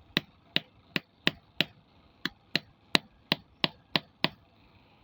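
Sharp, short metallic clicks, about three a second with a brief pause midway: a lead being tapped repeatedly against an 18650 lithium-ion cell's positive terminal to force-charge the dead cell.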